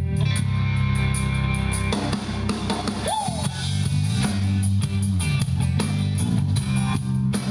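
Live country band playing a song's instrumental intro: a drum kit keeps a steady beat under electric guitar and bass, with no singing yet.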